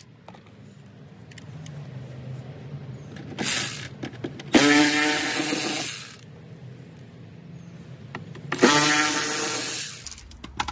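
Cordless electric ratchet whining in three bursts, backing out the screws that hold a plastic fender liner: a brief one about three and a half seconds in, then two of about a second and a half each.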